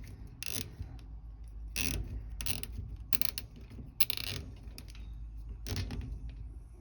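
Nylon zip tie being cinched tight in several short pulls, its strap ratcheting through the locking head.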